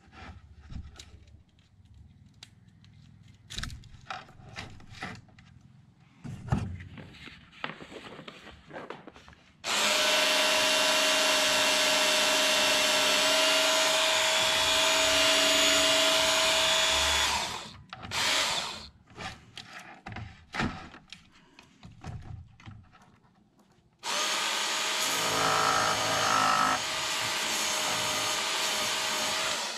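Work Sharp electric belt sharpener running with a steady whine for about seven seconds, then again for about six seconds near the end, grinding the burrs off chainsaw chain links. In between, the steel chain clicks and rattles as it is handled.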